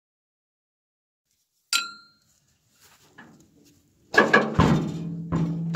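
One sharp metallic clink, then from about four seconds in a series of heavy blows on the steel fuel tank of a Caterpillar 955L crawler loader as it is worked loose. Each blow booms and rings on like a drum.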